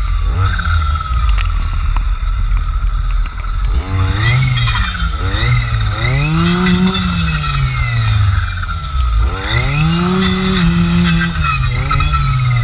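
Jonsered FC 2256 W clearing saw's two-stroke engine running, revved up under throttle twice, about four and nine seconds in, and dropping back toward idle in between. Its circular saw blade is spinning on the head.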